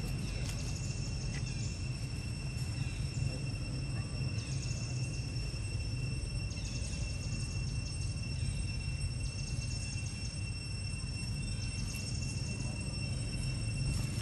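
Insects droning steadily in woodland, with a louder buzz that swells and fades about every two seconds, over a constant low rumble.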